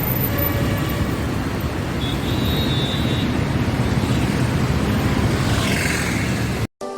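Steady outdoor background noise with a heavy low rumble and a few faint high tones. It cuts off abruptly near the end, and music starts.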